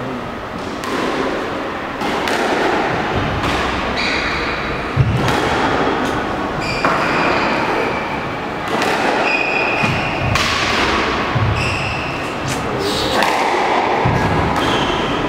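Squash rally: the ball struck by rackets and hitting the walls with sharp thuds every second or two, mixed with short high squeaks of players' shoes on the wooden court floor.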